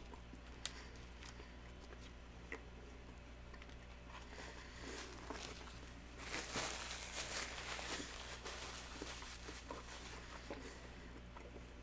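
Close-miked eating of fast food: scattered mouth clicks and chewing, with a louder, noisier stretch of crunching and rustling about five to eight seconds in.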